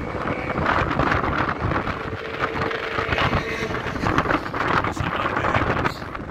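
Strong wind buffeting the microphone in uneven gusts.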